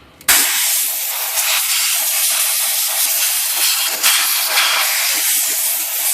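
Compressed-air blowgun hissing steadily, blowing out the type-bar segment and its pivots after a solvent flush, starting about a third of a second in.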